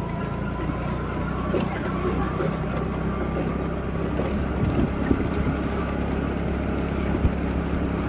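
Motor scooter engine running steadily while being ridden along a village road, heard from the rider's seat.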